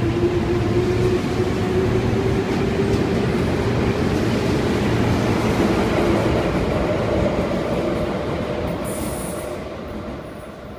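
Toei 10-300R-series subway train, its armature-chopper-controlled motors accelerating away from a station. A motor whine rises in pitch over the rumble of wheels on the rails. It fades as the train pulls away near the end.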